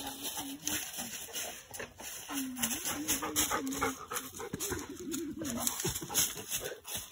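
A hound whining in a series of short, wavering cries.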